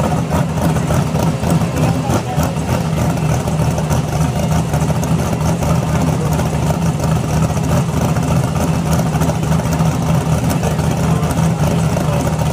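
Car engine idling steadily at a drag strip lane, a loud even running sound with no revving.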